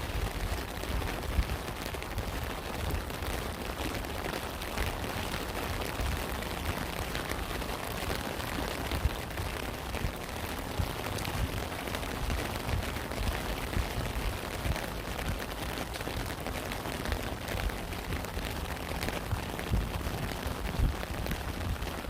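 Steady rain: a dense pattering of drops with frequent low thuds underneath.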